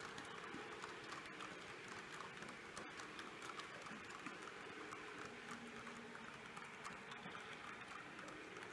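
H0 scale model freight train of hopper wagons rolling past, its wheels making a fast, uneven clicking and rattling on the track and rail joints, with a faint steady hum underneath.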